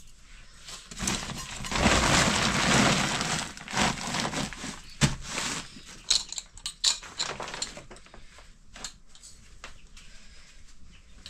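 A woven plastic sack rustling and crinkling as it is handled for about three seconds, then a run of sharp clinks and knocks as steel plates and a pot are picked up and set down.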